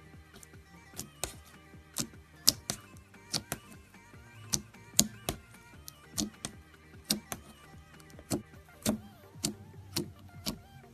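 Slime being squeezed and poked, giving sharp, irregular clicks and pops about twice a second, over faint background music.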